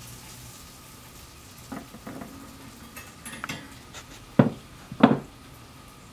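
Metal cooking gear clinking and clanking: the wire chicken basket of an oil-less fryer and its metal lifting tool knocking together. Light clinks come first, then two loud clanks about a second apart near the end.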